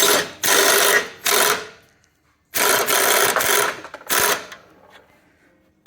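Impact gun running through a universal joint in four bursts of hammering, two long and two short, working a rusted exhaust-flange nut loose. The nut comes off without snapping the stud.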